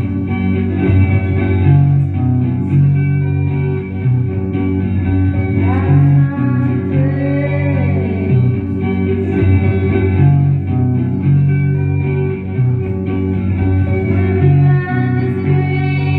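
Live post-punk-style song: a repeating, cyclical electric guitar melody over steady bass notes, with a few gliding pitches above.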